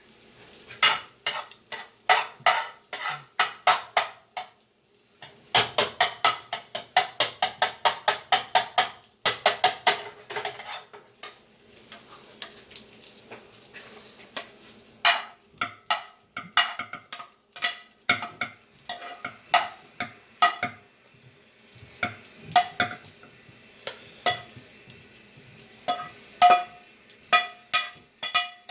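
A spoon stirring eggs in a frying pan, knocking against the pan in quick runs of several clicks a second that ring briefly, with a faint sizzle between the runs.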